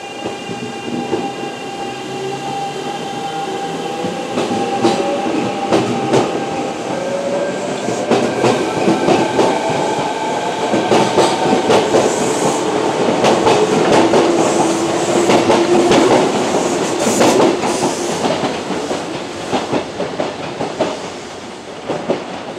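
Kintetsu electric train moving through the station: a motor whine that glides in pitch, with many clicks of the wheels over rail joints. It grows louder to a peak about two-thirds of the way through, then fades near the end.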